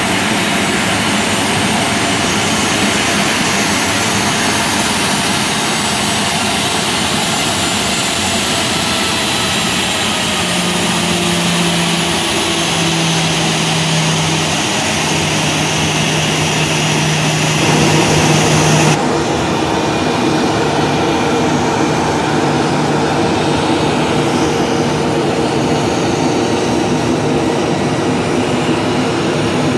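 Boeing 737-800's CFM56 jet engines running at idle at close range, a loud steady rush with a faint high whine. About two-thirds of the way through the sound changes abruptly to a duller, lower steady hum.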